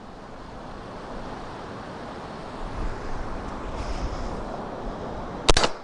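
Wind noise on the microphone, then about five and a half seconds in a single sharp shot from an AR-15 upper with an integrated suppressor, firing subsonic .300 Blackout.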